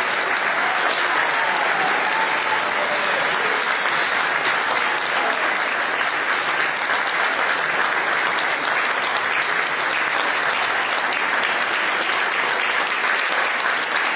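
Audience applauding, a dense and steady round of clapping that keeps going without letting up.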